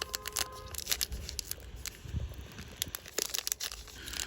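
Disney Lorcana trading cards and booster-pack wrapper being handled: irregular light crinkles and sharp clicks.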